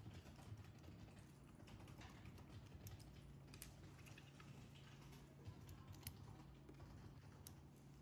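Faint scattered clicks and taps of small metal parts being handled on a desk: a cylindrical sensor, aluminium mounting brackets and screws. A steady low hum runs underneath.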